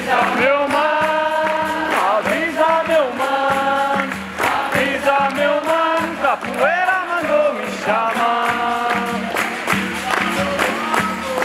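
Capoeira music: voices singing a melody, some notes held and some bending in pitch, over berimbau and hand percussion keeping a steady beat.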